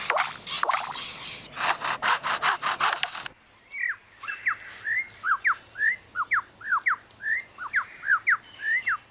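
Superb lyrebird mimicking foresters' chainsaws: a rapid run of harsh, noisy pulses. About three seconds in this gives way suddenly to a run of clear whistled notes sweeping up and down, about three a second.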